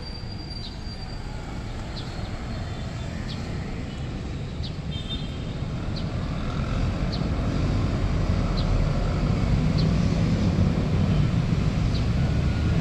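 Road traffic rumble building steadily louder as a motor vehicle approaches along the street. A short high chirp repeats about every second and a half over it.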